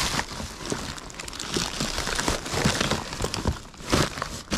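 Rubbish in a dumpster being rummaged through by hand: irregular rustling and crinkling with many small knocks.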